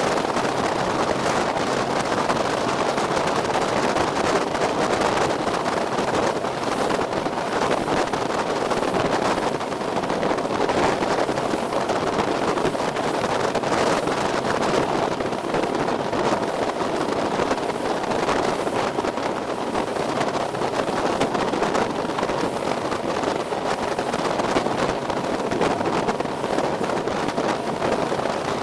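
Small motorboat under way: its engine runs steadily beneath a constant rush of wind on the microphone and water past the hull.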